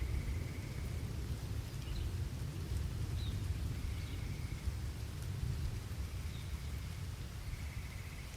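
Steady rain under a continuous low rumble of thunder. A faint high trill comes and goes three times.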